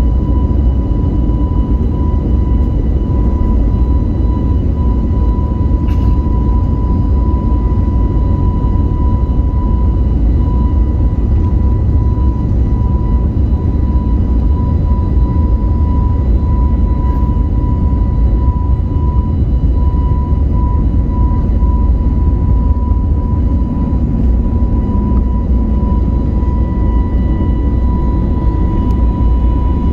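Airbus A321neo on its takeoff roll, heard from inside the cabin: the turbofan engines at takeoff thrust give a steady high whine over a loud, continuous rumble of the wheels on the runway. A brief click sounds about six seconds in.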